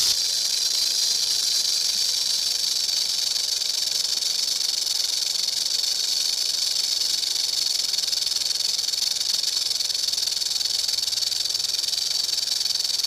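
A loud, steady, high-pitched hiss that does not change, with a faint low hum beneath it.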